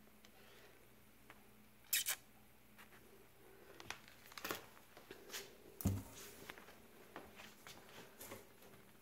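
Cats playing around a cardboard box and a plastic bag: scattered crinkles and rustles of the bag and light scratching, with a sharp double crackle about two seconds in and a dull thump about six seconds in.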